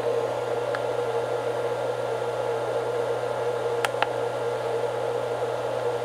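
A small electric motor whirring steadily, with an even hiss, a steady mid-pitched band and a low hum underneath. A few faint ticks sit over it, most clearly about four seconds in.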